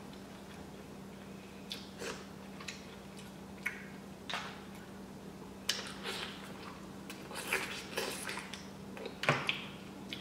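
Scattered light clicks and rustles of clam and mussel shells and food being picked from a foam takeout tray, with eating sounds as a clam is sucked from its shell, over a steady low hum.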